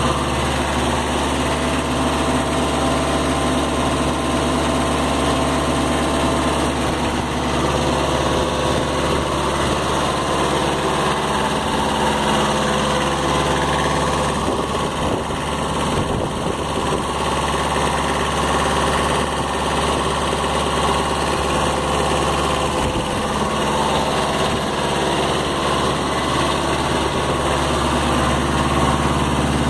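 Diesel engine of a Kubota B7000 compact tractor (Zen-Noh badged) running steadily.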